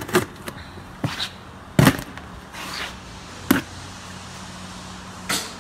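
Plastic packing straps around cardboard boxes being snipped with cutters: about five sharp snaps spread over the few seconds, the loudest about two seconds in, with a short rustle just after it.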